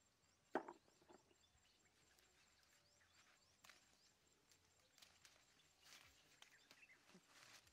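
Near silence, with a few faint clicks and snaps from a leafy bush as it is picked by hand. There is one brief, sharper sound about half a second in.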